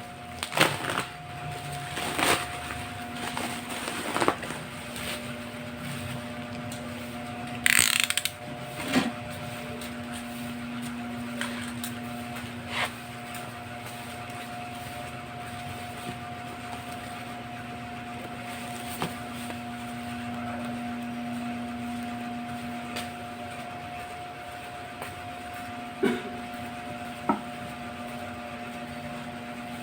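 Packaging and items being handled: scattered knocks and clicks, with a short rustle about eight seconds in, over a steady electrical hum.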